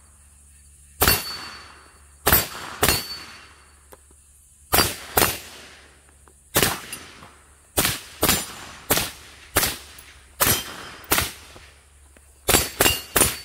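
About fifteen shots from a short-barrelled AR-15 carbine with an 11.5-inch BCM upper, fired singly and in quick pairs as the shooter moves between targets. A fast string of three or four comes near the end, and a faint brief ring follows some of the shots.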